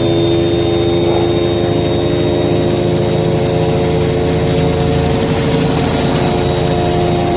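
Electric motorcycle held at about 100 km/h on a roller dynamometer: a loud, steady whine of several held tones from the motor and drivetrain over the rumble of the spinning roller.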